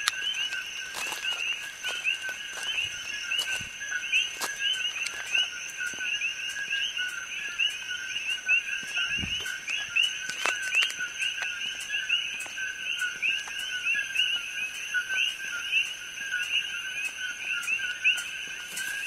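A chorus of many coqui frogs calling at once, each call a quick two-note "co-qui" with the second note higher. The calls overlap into a continuous din of many calls a second.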